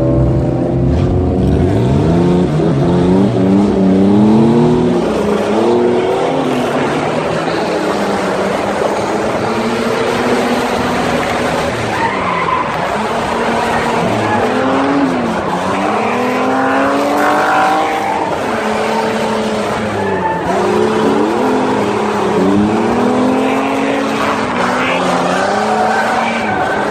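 Chevrolet Omega drifting, heard from on board: the engine revs climb sharply at the start, then rise and fall over and over as the throttle is worked through the slides, with the rear tyres skidding under it.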